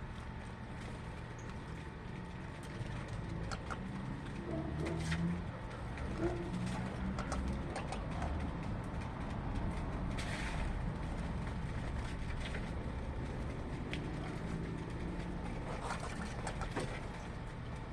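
Birds calling over a steady low rumble, with a brief noisy burst about ten seconds in.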